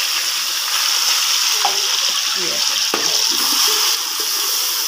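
Chopped onion, tomato, green garlic and green chillies sizzling steadily in hot ghee in a large aluminium karahi, with a spoon stirring and scraping through them from about the middle onward.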